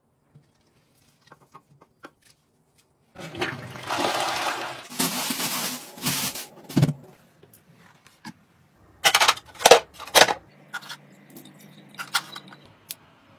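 A toilet flushing: water rushes loudly for about three seconds. After it come several sharp clicks and knocks of plastic fittings being handled.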